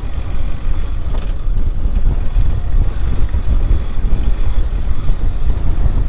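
Wind buffeting the microphone: a heavy, constantly fluctuating low rumble.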